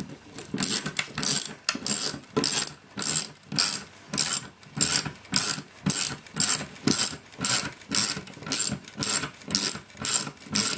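Ratcheting screwdriver clicking in short back-and-forth strokes, about two a second, as a tight standoff is being unscrewed.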